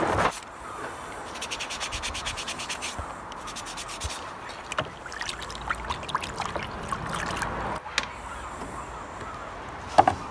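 Scrubbing plastic printer casing with a pad and a mild abrasive cleaner: steady scratchy rubbing, with a quick run of fast strokes about three seconds in and a few sharp knocks of the part being handled.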